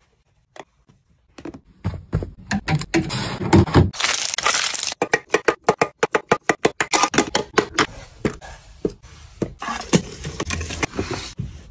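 Hands placing small items into plastic and acrylic storage organizers: rustling and many quick clicks and taps, with a fast run of clicks in the middle as lipstick cases are set into the slots of a clear acrylic organizer.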